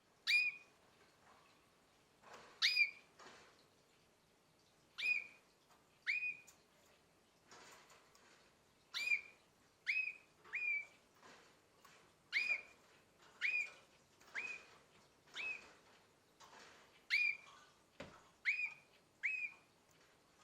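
Young domestic canary, about nine months old, giving short whistled call notes that each sweep quickly upward and hold briefly. The notes come singly or in pairs, a second or two apart, with fainter scratchy chirps between them.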